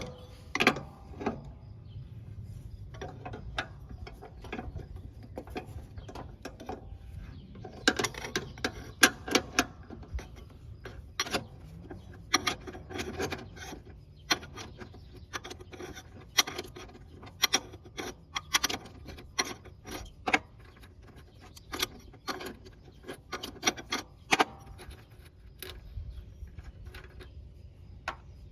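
A 15 mm wrench working the nut off a mower-deck pulley bolt, making sharp metallic clicks and clinks at irregular intervals, more frequent in the second half.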